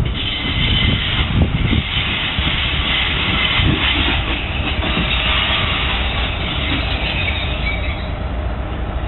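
Diesel freight locomotive passing over a level crossing: a steady low rumble with wheels knocking over the rails and a high-pitched wheel squeal.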